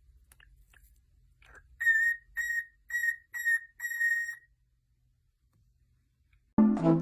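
Five short, high whistle-like squeaks in quick succession, each held steady and then dropping off, after a few faint clicks. Near the end, music with a woodwind melody starts loudly.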